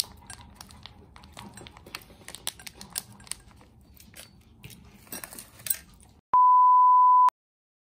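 Crinkling of a plastic food packet being squeezed out over a glass bowl, with light clicks of chopsticks against the glass. About six seconds in comes a steady, loud, high censor bleep lasting about a second, the kind used to cover a swear word.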